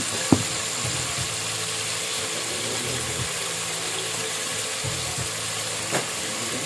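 Small whole fish frying in an aluminium pot, a steady sizzle, while wooden chopsticks turn them. A sharp knock comes about a third of a second in, and another near the end.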